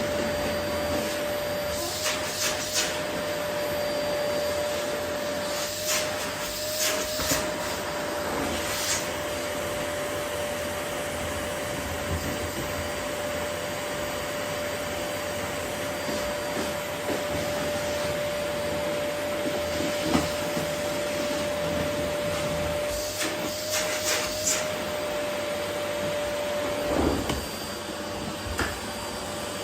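Vacuum cleaner running steadily on a wooden floor with one steady whine, broken several times by short rustling bursts as it sucks up rose petals.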